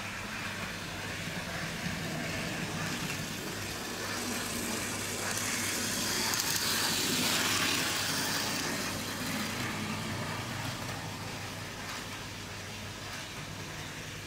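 Bachmann OO gauge Wickham Type 27 trolley model running past on the track. The whir of its micro motor and wheels swells to a peak about halfway through, then fades away.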